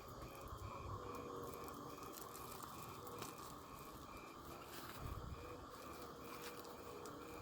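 Insect chirping steadily, about three short high pulses a second, over a faint low wind rumble.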